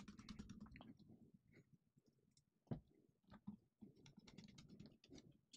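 Faint clicks and scratchy ticks of a precision screwdriver driving small screws down into a laptop battery, in two clusters, with one sharper knock about halfway through.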